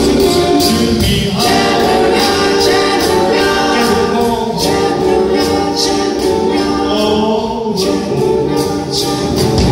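A vocal group singing in close harmony, live, with a swing big band behind them and a steady beat.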